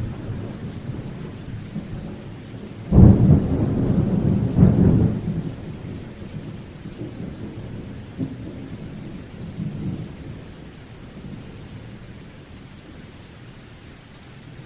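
Thunderstorm: steady rain with a sudden thunderclap about three seconds in that rumbles loudly for a couple of seconds. Weaker rumbles follow twice, and the storm slowly fades toward the end.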